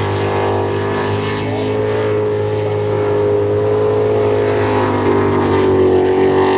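Jet sprint boat's engine running hard through a timed run, its note wavering slightly up and down as the throttle changes.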